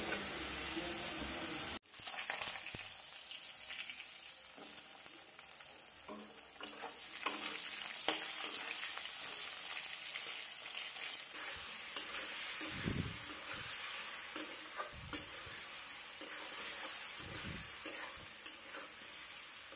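Slices of pointed gourd and potato sizzling steadily in hot oil in a steel kadhai, with a metal spatula stirring and scraping against the pan, giving occasional clicks and knocks.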